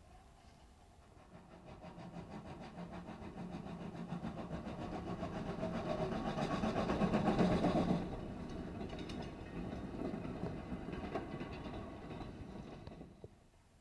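Small steam tank locomotive working closer with a rapid beat of exhaust and rods, loudest as it passes at about eight seconds, where the sound drops sharply. After it, wooden goods wagons roll past with wheel clicks on the rail joints until the sound cuts off near the end.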